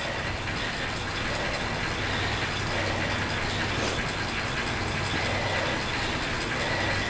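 Bicycle drivetrain and indoor trainer running steadily under continuous pedalling: an even mechanical whir with a constant low hum.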